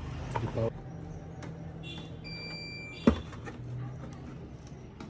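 A short electronic beep, a steady high tone held for under a second, followed by a single sharp click, over a low steady electrical hum.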